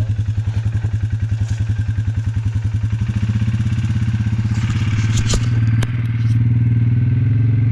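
Off-road vehicle engine idling with a fast, even pulsing beat. About three seconds in, a second, steadier engine note joins it, and a few sharp clacks come between about five and six seconds.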